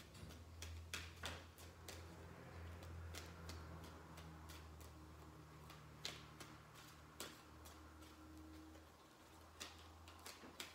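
Near silence with faint, scattered clicks and taps of tarot cards being handled and drawn, over a low steady hum.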